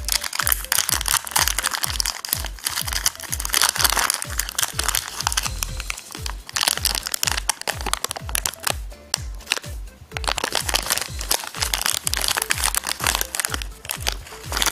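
Background music with a steady beat, over the crinkling and crackling of a foil-lined plastic candy packet being torn open and handled. The crinkling is heaviest in the first few seconds, as the packet is torn open.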